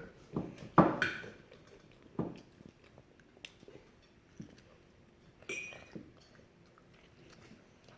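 A child eating artichoke noisily: a few short, wet chewing and sucking mouth noises, the loudest about a second in, with quiet gaps between them.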